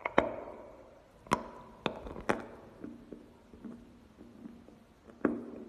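A bite into a dry chunk of clay and crunchy chewing close to the mouth: five sharp crunches, the loudest at the first bite, with softer, even chewing between them.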